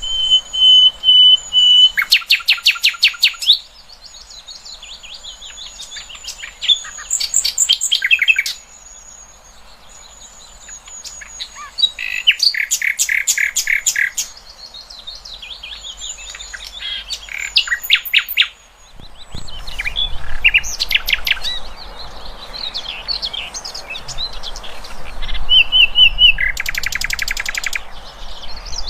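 Songbird song from a masteran recording, the kind played to teach competition cage birds: phrases of rapid high trills and whistles with short pauses between them. About two-thirds of the way through the background hiss changes, as a new recording begins.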